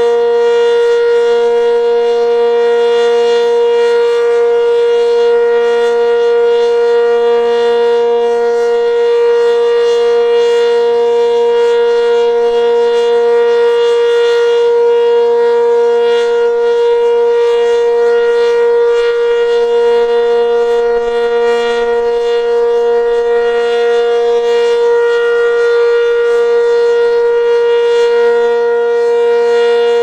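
ACA Cyclone 120 outdoor warning siren sounding a steady alert tone at full speed, a loud held pitch with no rise or fall. The siren is reverse-wired, yet still loud.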